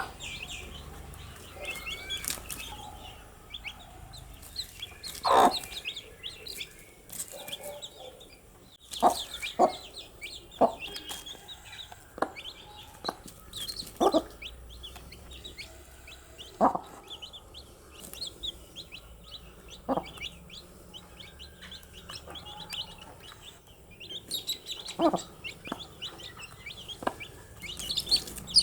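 Baby chicks peeping continuously in quick, high chirps. About a dozen louder short, sharp sounds, pecks or clucks, cut through the peeping at irregular intervals.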